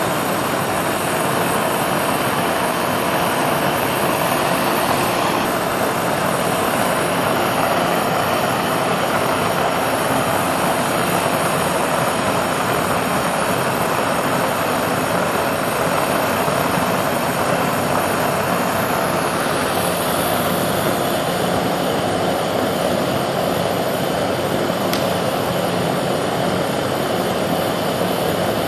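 Gas burner running, a steady rushing noise of its blue flame jetting against a fire-resistant panel in a flame test.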